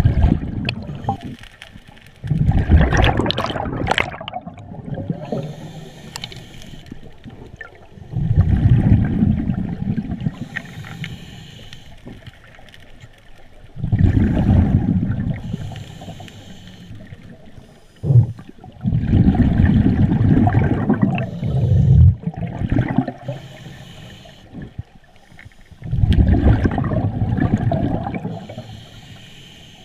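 Scuba diver breathing through a regulator underwater: a gurgling rush of exhaled bubbles about every six seconds, five times, with a quieter hiss of inhalation between.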